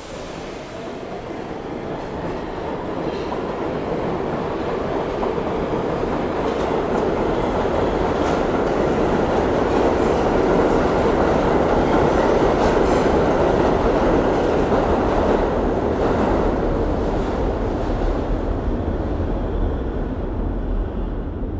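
New York City subway train of R62 cars pulling out of a station. The motor whine rises in pitch over the first few seconds as the train accelerates, then gives way to a loud, steady rumble and wheel clatter over the rail joints.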